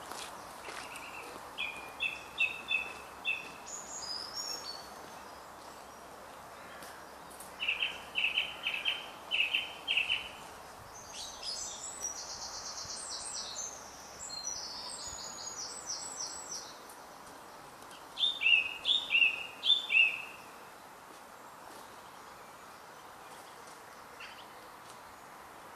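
Wild songbirds singing in short phrases of quickly repeated chirps, a few seconds apart, with a higher, faster run of notes in the middle and the loudest phrase near the end.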